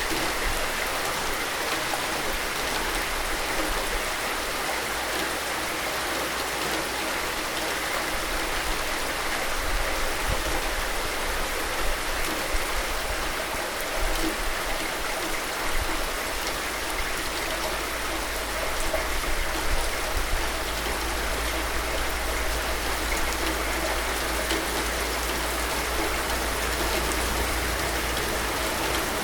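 Steady, dense rainfall, an even hiss of many drops with no let-up, over a low steady rumble.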